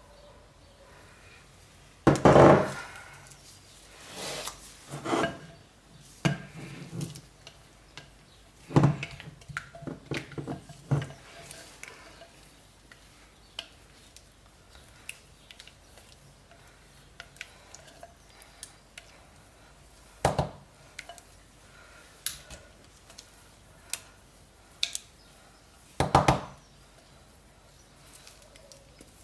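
A utensil scraping and knocking against a pot and mold as thick, fast-setting cold-process soap batter is scooped into the mold, with a few louder knocks and many small clicks and scrapes between.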